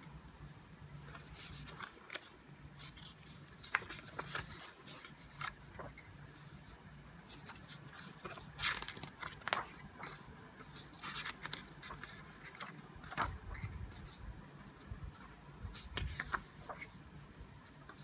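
Paper pages of a large paperback book being turned and handled: irregular rustles, scrapes and flaps of paper, several seconds apart, over a faint low hum.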